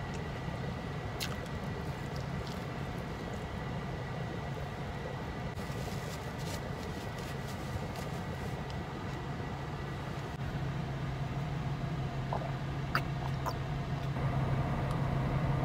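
Steady low hum inside a car, growing a little louder about two-thirds of the way through, with small clicks of chewing and, near the end, a plastic water bottle being handled and drunk from.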